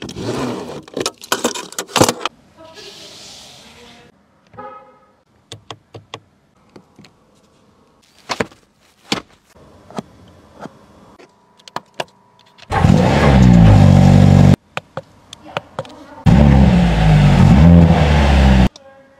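Mercedes-AMG C43 Estate's turbocharged 2.0-litre four-cylinder engine revved hard in two loud bursts of about two seconds each, pitch swinging up and down, the second starting a couple of seconds after the first ends. Before them, light clicks and a rustle of plastic film from hands working the cabin controls.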